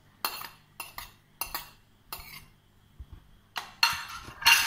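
Stainless-steel kitchen utensils clinking against each other and a plate: a string of separate short clinks, with a louder clatter near the end.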